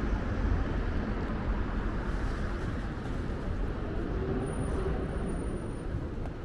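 Road traffic at a city junction: a steady low rumble of passing cars and engines, with a faint thin high tone for about a second and a half near the end.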